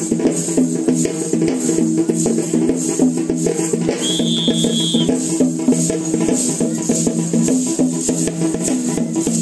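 Lezim dance music: a steady low drone and a repeating melody over a quick drum beat, with the rapid metallic jingling of lezim cymbals. A short high tone sounds for about a second, about four seconds in.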